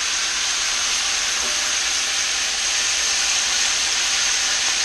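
String beans, freshly steamed and still wet, sizzling steadily in hot butter and olive oil in a cast-iron skillet alongside pork chops.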